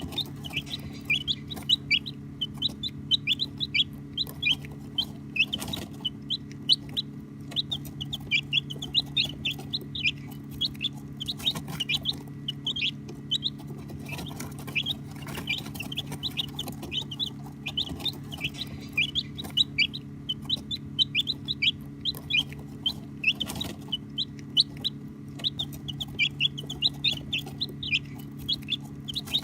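A group of baby chicks peeping continuously: many short, high chirps a second, overlapping, with no pauses. A steady low hum runs underneath.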